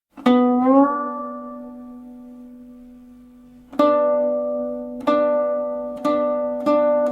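Guqin music: a single plucked note that slides up a little in pitch just after it is struck and rings down slowly, followed by a run of plucked notes coming closer together.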